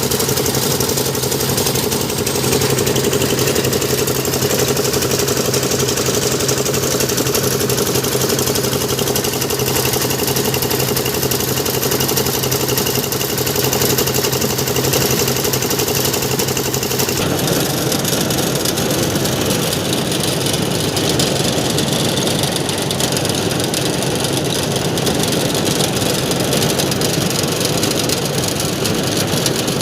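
Engine-driven paddy thresher running steadily: a loud, continuous machine noise with a steady hum underneath. The sound changes abruptly a little past halfway through.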